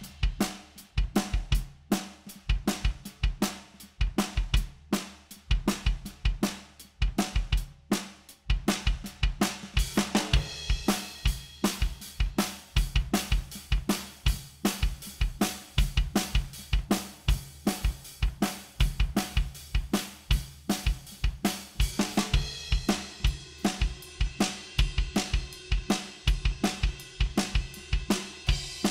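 Recorded acoustic drum kit playing a steady groove of kick, snare, hi-hat and cymbals, played back through Vertigo Sound's VSM-4 harmonic-distortion (saturation) plugin. About ten seconds in, the cymbals get busier and brighter.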